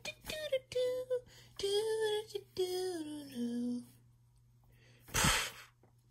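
A voice sings a short wordless tune in a few held notes that slide down in pitch toward the end. About five seconds in comes a short, loud breath.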